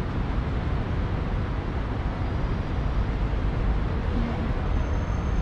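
Steady low rumble of outdoor city background noise, with no distinct event standing out.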